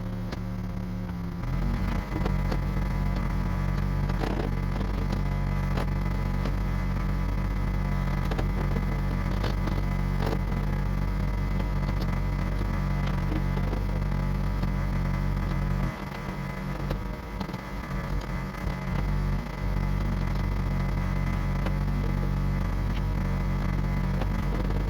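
Diesel engine of a heavy earthmoving machine running steadily under work, with scattered clanks and knocks; the engine note drops for a few seconds about two-thirds of the way through, then comes back.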